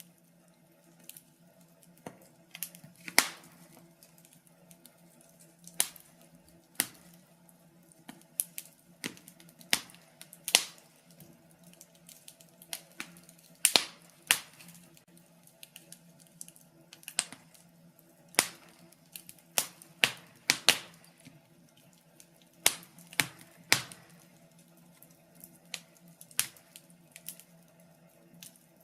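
Wood fire crackling in a fireplace: irregular sharp pops and snaps, some much louder than others, coming every second or so.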